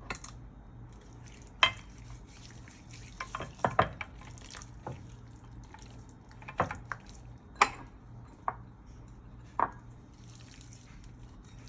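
Scattered knocks, taps and light clatter of kitchen dishes and utensils being handled while food is prepared, spaced irregularly a second or more apart, over a faint steady hum.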